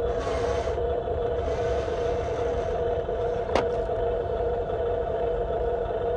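Steady electric motor and gear whine of a radio-controlled construction model, with a low rumble underneath and a single sharp click about three and a half seconds in.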